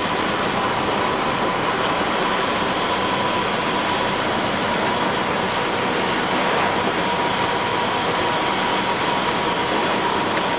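1999 International diesel school bus under way, heard from inside: a steady run of engine and road noise with a steady whine, and light ticking rattles scattered through it.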